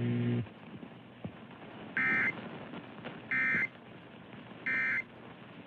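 Three short data bursts of an Emergency Alert System end-of-message code, each a brief digital buzz, about 1.3 s apart. A low steady hum cuts off about half a second in.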